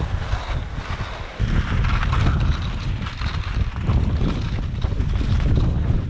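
Strong wind buffeting the microphone: a heavy, gusting rumble with a short lull just over a second in before it comes back loud.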